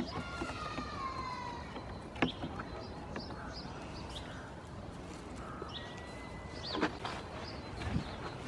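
Goats' hooves knocking on wooden pallets as they climb about: a few sharp knocks over a steady outdoor background. A brief high squeak falls in pitch at the start.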